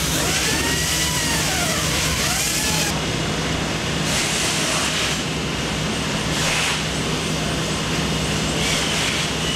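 Steady loud factory machine noise: a constant hum under a dense hiss. A few rising-and-falling squeaks sound over it in the first three seconds.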